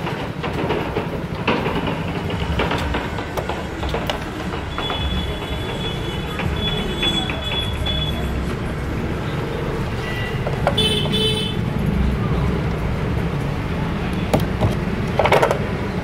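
Steady rumble of street traffic, with vehicle horns tooting about five to eight seconds in and again near eleven seconds. A few light metallic clicks come from the lock cylinder and wire picks being worked in the vise.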